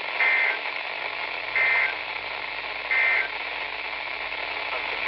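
Three short buzzy data bursts about 1.3 seconds apart over steady radio static from a NOAA Weather Radio receiver: the SAME end-of-message tones that close the severe thunderstorm warning broadcast.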